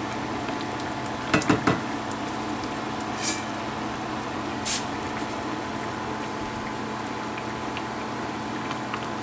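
A pan sauce of white wine, chicken broth and capers simmering with a steady bubbling hiss around veal cutlets. About a second and a half in there are three quick clacks of a utensil against the pan, and later two brief spits.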